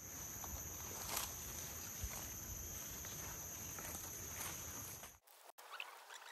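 Steady high-pitched insect chorus over low rustling and a few soft knocks, cutting off abruptly about five seconds in; after that, faint short chirping calls.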